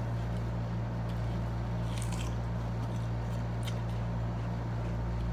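Steady low hum of a window air conditioner running, with faint chewing and a few brief soft clicks about two seconds and near four seconds in.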